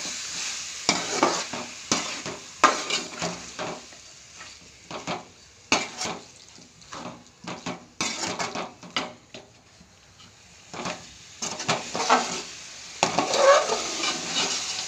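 A spoon scraping and knocking against a metal pan as marinated chicken is stirred into frying masala paste, with the mixture sizzling underneath. The scrapes come irregularly, a few each second.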